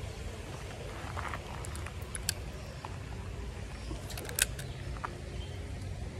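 Steady low outdoor rumble with a few sharp clicks of a fishing rod and spinning reel being handled, the loudest about four seconds in.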